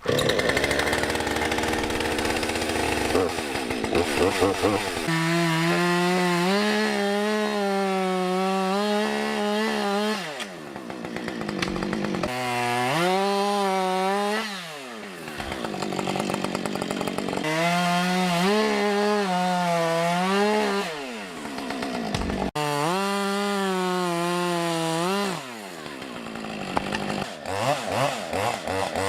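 Gas chainsaw cutting spruce log posts to height, held at high revs through several long cuts and dropping back toward idle between them.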